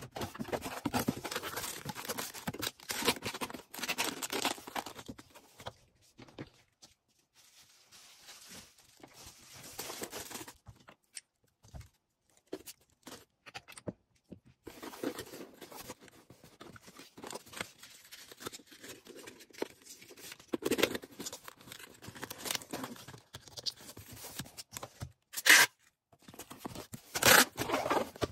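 Packaging handled by hand while an order is packed: rustling and tearing in several stretches with quiet pauses between, and two short sharp snaps near the end.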